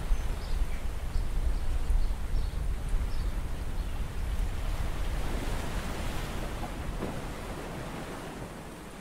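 Shallow seawater sloshing and churning against a camera dipped at the surface, with a steady low rumble and faint crackling clicks in the first few seconds. It grows quieter toward the end.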